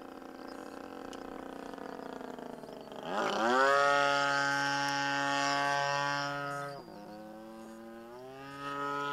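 Radio-controlled model airplane's motor and propeller in flight, changing throttle. A slowly falling hum rises sharply to a steady, louder whine about three seconds in, drops back suddenly near seven seconds, then climbs again about eight seconds in.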